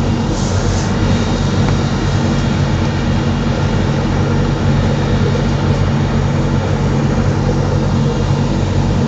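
Small passenger ferry's engine running steadily underway, heard from inside the cabin: a loud, even low drone with a steady hiss over it.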